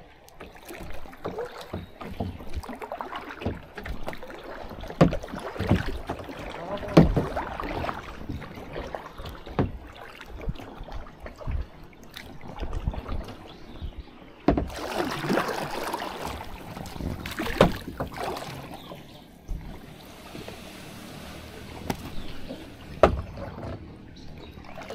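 Kayak paddling: paddle strokes splashing in the water, with irregular knocks of the paddle and gear against the kayak hull and a longer splashing stretch a little past the middle.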